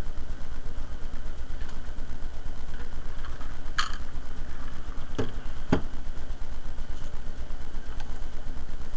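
Steady low rumble of a large Zippo lighter-fluid flame burning under a stainless steel cup, with a few sharp ticks about four, five and six seconds in.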